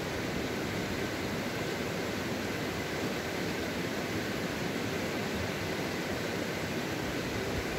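Mountain stream rushing over stones: a steady, even rush of water.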